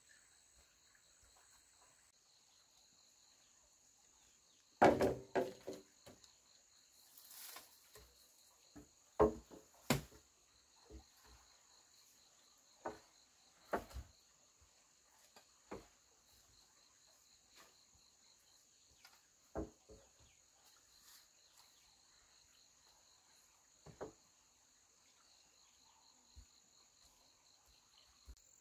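Insects chirring steadily in a high, even drone. Irregular knocks and clatters come every few seconds, loudest about five seconds in and again around nine to ten seconds in.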